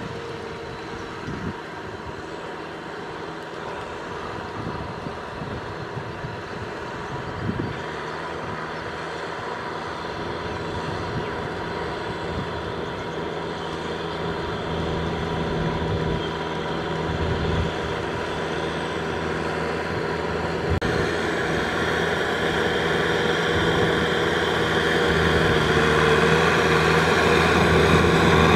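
Farm tractor's diesel engine running steadily under load as it drags a leveling board through flooded paddy mud. It grows louder as the tractor comes closer.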